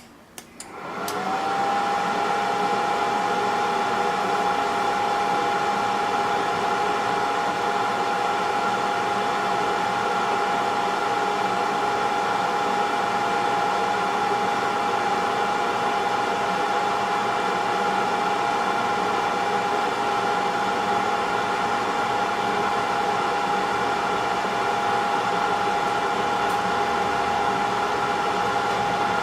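Hot-air rework machine's blower spinning up about a second in and then running steadily, with a whine that rises as it starts and then holds one pitch. The machine is running a preset heating profile to desolder the HDMI ports from the board.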